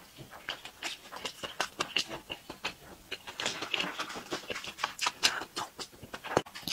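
Close-miked chewing of a soft pan-fried bun with a vegetable filling: wet, irregular mouth smacks and clicks, busiest in the middle, with a sharper click near the end.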